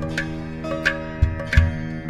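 Background music: plucked strings over a steady drone, with low drum beats.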